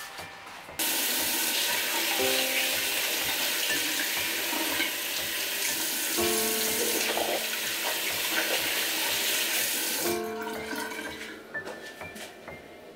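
Bathroom sink tap running steadily into the basin while a face is washed: it comes on suddenly about a second in and stops about ten seconds in. Soft piano music plays underneath.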